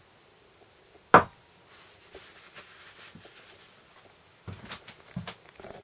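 A single sharp knock about a second in as a metal four-wheel-drive coupling is set down on a wooden workbench, followed near the end by a few lighter knocks and rustles of parts being handled.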